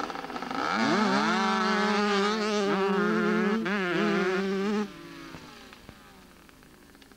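Small two-stroke dirt bikes, one a Honda CR80, revving up sharply from a standstill and holding high, buzzing revs as they accelerate away. The sound drops away abruptly about five seconds in, then fades.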